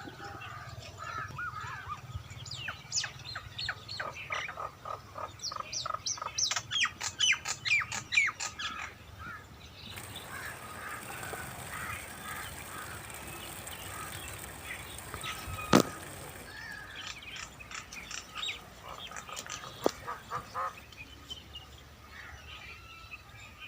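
Birds calling, with fast runs of short chirps and squawks. A steady high hiss rises for several seconds in the middle, and a single sharp knock comes near the end of it.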